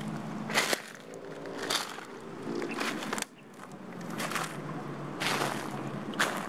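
Footsteps crunching through dry fallen leaves and dead grass, about one step a second.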